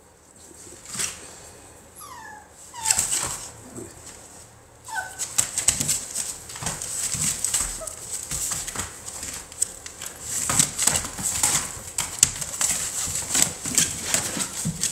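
American bully puppies: a few short, falling whimpers in the first five seconds, then a dense rustling and scratching as the pups shift about in wood shavings on a plastic pool floor.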